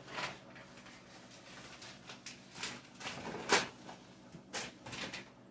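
Scattered light knocks and rustles of kitchen handling, including a wooden cabinet door being opened. The sharpest knock comes about three and a half seconds in.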